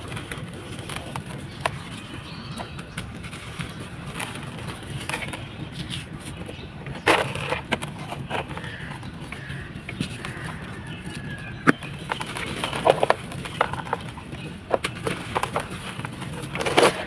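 Gritty sand-cement balls being crushed and crumbled dry in a tub: irregular crisp crunches and crackles, with a few louder crunches about seven seconds in, around twelve to thirteen seconds, and near the end.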